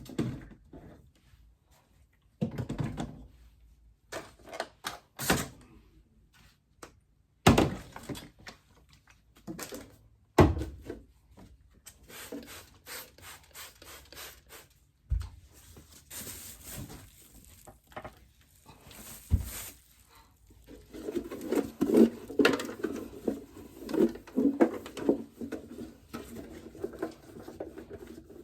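Scattered knocks and thunks of things being handled and set down while a mini fridge is emptied and cleaned, with a few sharper knocks. From about twenty seconds in comes a denser, continuous clatter and rustle.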